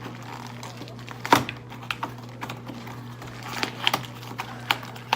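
Scattered clicks and knocks of hands handling parts and packaging of a Nerf blaster being unboxed, with the loudest knock about a second and a half in.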